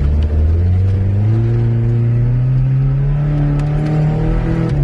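Subaru EJ22 flat-four engine in a lifted Forester pulling under load off-road, its pitch rising steadily for about three seconds and then dropping near the end.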